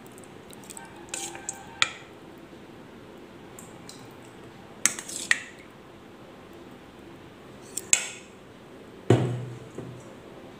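Steel spoon clinking and scraping against a steel bowl and a plastic popsicle mould while spooning soaked, cooked sago (javvarisi) into the moulds: a few scattered sharp clinks, with a heavier, duller knock about nine seconds in.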